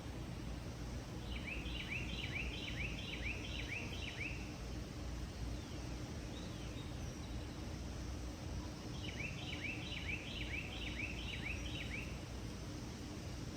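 A small bird sings twice, each song a run of about seven quick down-slurred notes lasting some three seconds, over steady outdoor background noise.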